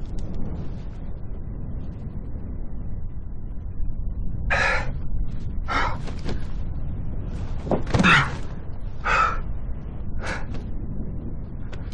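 Strong desert wind rumbling steadily. Over it a man gasps, grunts and cries out in short bursts, about six of them from around four seconds in, the loudest a cry near eight seconds.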